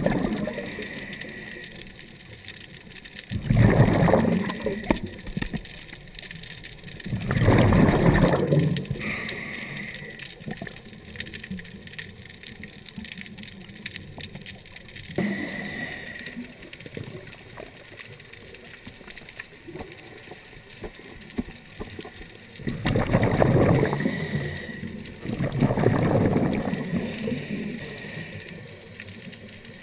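Scuba diver's breathing heard underwater: exhaled regulator bubbles rush out in four bursts of a second or two each, two close together early and two close together near the end, with a steady quieter water wash between.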